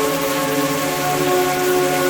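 Steady rain with soft, sustained music of held notes underneath.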